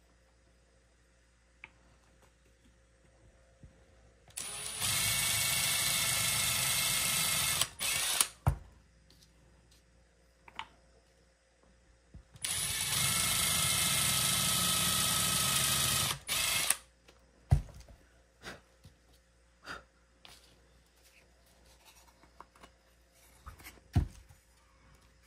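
Milwaukee FUEL brushless cordless drill running in two steady bursts of about three seconds each, each ended by short trigger blips, drilling into a small wooden knob and a thin scrap-wood piece. Light clicks and knocks of the wood pieces being handled follow, with a sharper knock near the end.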